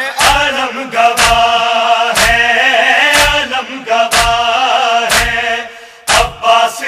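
Male voice chanting a nauha lament in Urdu with long held, wavering notes. Steady slaps of chest-beating (matam) mark the beat about once a second.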